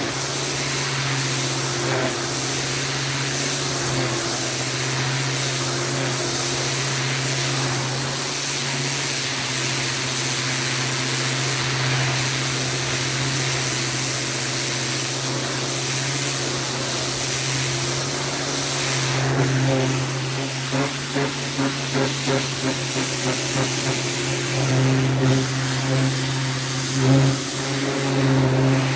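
Pressure washer running, a steady motor hum under the hiss of the spray jet. In the last third the sound turns uneven and pulsing.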